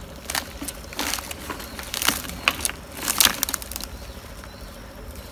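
Palm weevil's cocoon of dry palm fibre being torn open by hand: short rustling, crunching noises about once a second, dying away after about three seconds.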